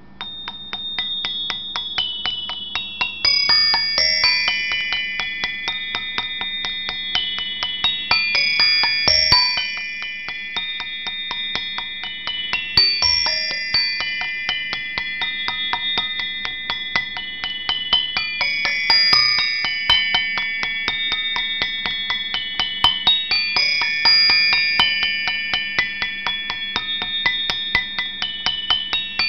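A high, tinkling, bell-like melody of rapidly struck chiming notes. The same phrase repeats over and over, about every five seconds.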